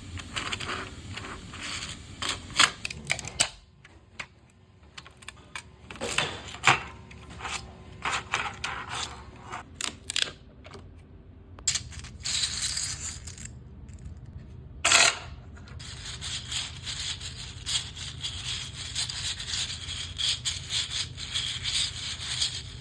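3D-printed PLA fidget toys being worked by hand: hard plastic parts clicking, rattling and sliding against each other, with sharp clicks and stretches of steady scraping, and a quieter pause a few seconds in.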